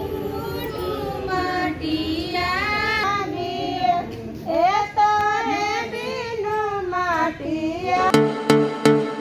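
A high female voice sings a melody with wavering, ornamented pitch over a steady background hum. About eight seconds in, it gives way to music with a steady beat.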